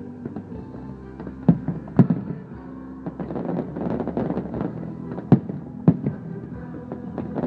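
Fireworks display: four sharp bangs of bursting shells, a pair about a second and a half in and another pair past the five-second mark, with spells of crackling in between, over steady music.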